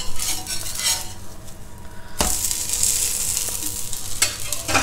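Metal spatula scraping under a ghee roast dosa on a hot cast iron tawa, then the dosa flipped over. It lands with a thump about two seconds in, the ghee sizzles louder for a second or two, and there are more spatula scrapes near the end.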